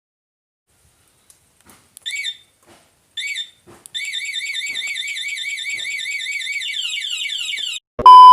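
Bike central-lock anti-theft alarm siren: two short chirps, then a rapidly warbling high-pitched siren for about four seconds that ends in a few falling sweeps. A loud steady beep starts near the end.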